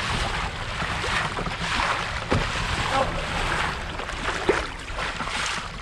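Water rushing and splashing along a kayak's hull, swelling and easing, as a hooked bluefin tuna tows the kayak through the sea.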